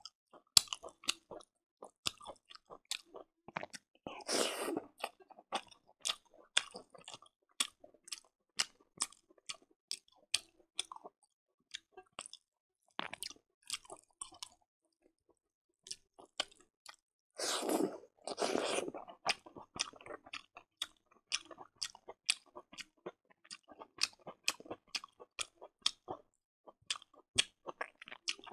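Close-miked mouth sounds of someone eating rice and pork curry by hand: chewing with many sharp, wet smacks and clicks, and two longer, louder noisy stretches, about four seconds in and again around eighteen seconds in.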